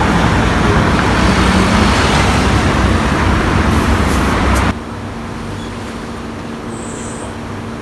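Road traffic noise: a steady rushing that drops suddenly a little past halfway to a quieter steady hum.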